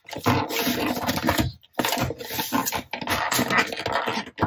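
Plastic lid being pressed down and worked onto a plastic food-storage container packed with sliced peppers: plastic scraping and rubbing, with a short pause about a second and a half in.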